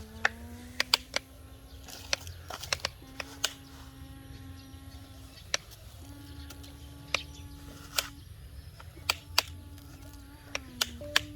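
Motor of a model hydraulic excavator whining in spells of about one to two seconds with short breaks, over a low hum, with many sharp clicks and knocks scattered throughout.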